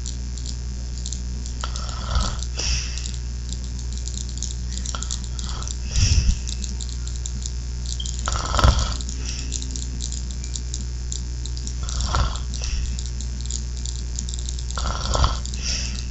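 A man snoring in his sleep, one rough snore about every three seconds, over a steady low hum.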